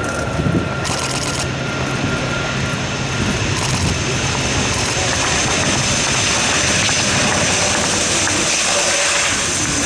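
Airbus A400M's four turboprop engines with eight-bladed propellers running as the aircraft rolls along the runway: a steady, loud engine and propeller noise, with a high steady whine coming in about halfway and growing a little louder.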